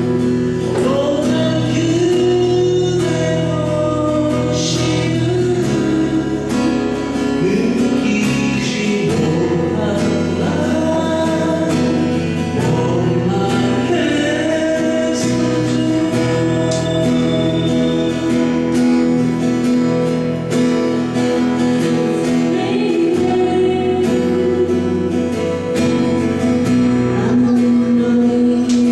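A song performed with a singing voice over guitar and a steady bass line, the melody moving and gliding between held notes.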